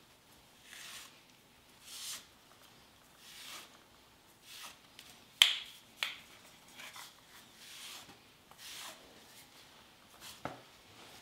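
Margin trowel scraping grout across tile in short repeated strokes, about one a second, with a few sharp clicks, the loudest about halfway through.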